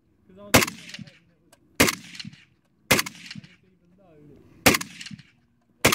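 RPK light machine gun fired in single shots: five separate loud reports about a second apart, with a longer pause between the third and fourth, each followed by a short ringing echo.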